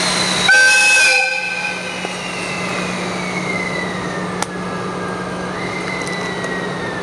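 EF65 electric locomotive sounding its air whistle in one short blast, loudest about half a second in and ending after about a second, as it starts pulling a freight train out of the station. After the blast a thin whine falls slowly in pitch while the train gets under way, over a steady low hum.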